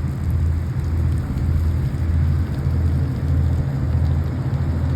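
Steady rain hiss over a loud low rumble that swells and fades about one and a half times a second.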